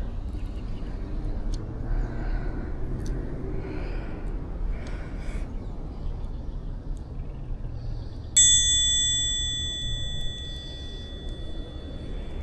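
A single bright bell-like ding about eight seconds in, ringing out and slowly fading, over a steady low rumble.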